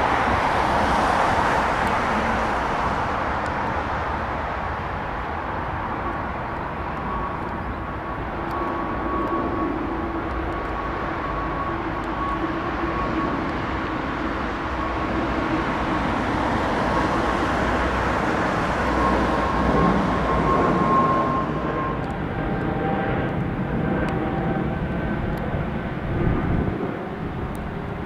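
Jet airliner engines running: a steady broad rush with a high whine held through the middle. About three-quarters of the way in, the top of the hiss drops away and other, lower whines take over.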